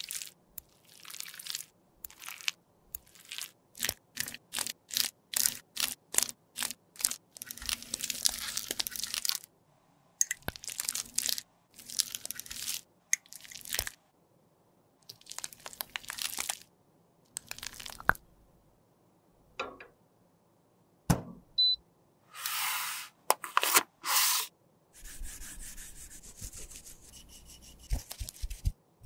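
Lipstick being crunched and scraped with small tools: a run of short, sharp crunches and clicks, broken by a few longer scrapes.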